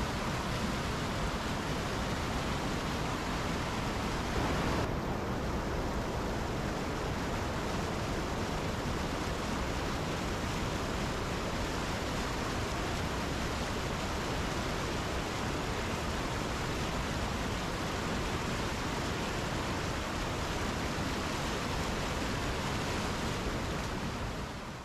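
Steady rush of whitewater from a river rapid. It turns slightly duller about five seconds in and fades out at the very end.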